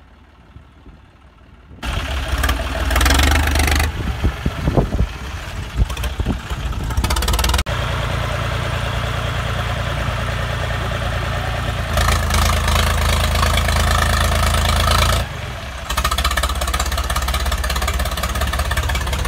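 Loud diesel tractor engines running hard under load in a tractor tug-of-war, the John Deere 5050 D straining against the other tractor. The engine noise sets in about two seconds in and then holds steady, with a few sudden jumps in level.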